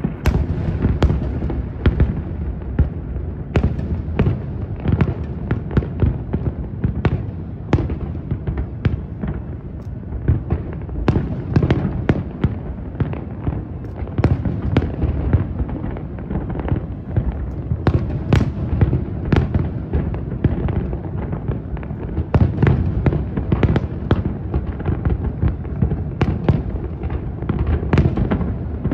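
Fireworks display in a dense barrage: rapid, overlapping booms and sharp cracks, many each second, over a continuous low rumble of echoing detonations.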